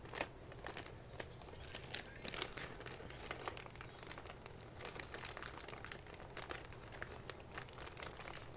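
Plastic courier mailer bag crinkling and tearing as it is pulled open by hand, a string of irregular sharp crackles; the bag is hard to tear open.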